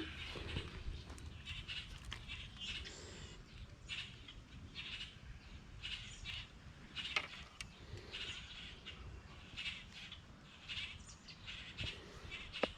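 Birds chirping repeatedly, short calls following each other every second or so, over a faint low rumble.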